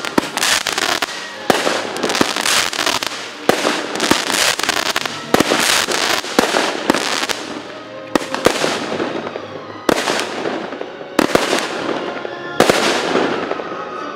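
Fireworks bursting: a dense run of bangs and crackling that thins out about halfway through to a few separate loud bangs, each trailing off.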